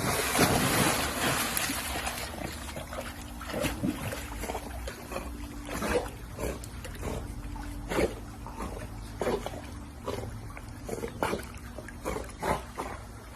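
A dog making a series of short sounds, spaced irregularly, after a loud rush of noise in the first two seconds.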